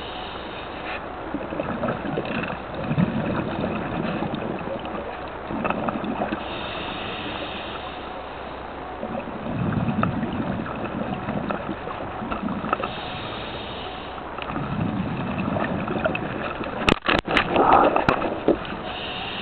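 A scuba diver breathing through a regulator underwater: a hiss on each inhale and a rumble of exhaust bubbles on each exhale, three breaths about six seconds apart. A few sharp clicks and knocks come near the end.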